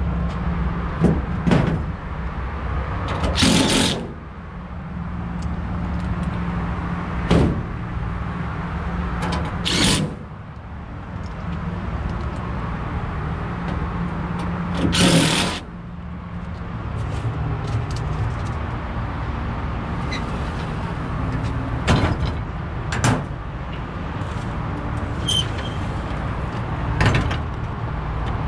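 Cordless drill-driver running in three short bursts as it drives sheet-metal screws into a rooftop HVAC unit's access panel, with a few sharp clicks and knocks from the panel and its latch, over a steady low hum.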